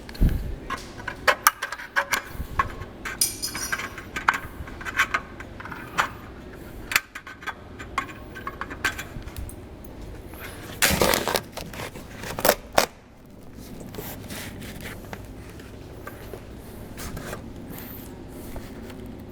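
Small metal pieces clinking and clattering as they are handled, with many short sharp clicks at first and a longer scraping clatter about eleven seconds in, then quieter.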